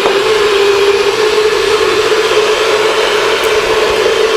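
Bullet-style personal blender running steadily, pureeing cucumber, green apple, orange and leafy greens into a smooth juice. Its motor makes a loud, even hum at one steady pitch, with no change in speed.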